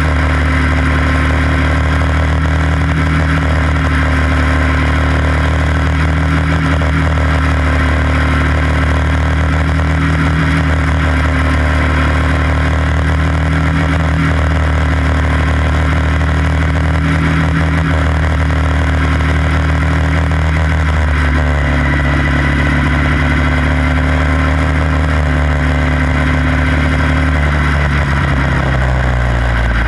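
Quarter midget race car's single-cylinder engine running flat out, heard from on board. Its pitch holds steady, shifts about two-thirds of the way through, then falls near the end as the car slows.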